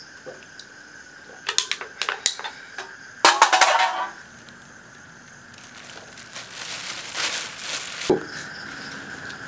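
An empty aluminium drink can is dropped and clatters on concrete, the loudest part a dense rattle about three seconds in, after a few sharp clicks. A rustling noise and a single knock follow, over a faint steady high tone.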